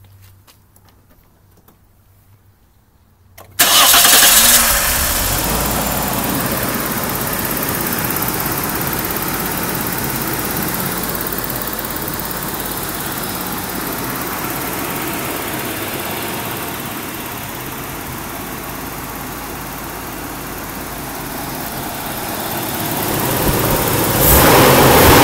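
Nissan Skyline R31's straight-six engine starting about three and a half seconds in, flaring briefly as it catches, then running steadily at idle. It grows louder again near the end.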